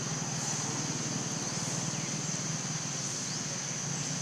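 Outdoor daytime ambience: a steady, high-pitched insect drone with a few short rising bird chirps, over a low steady hum.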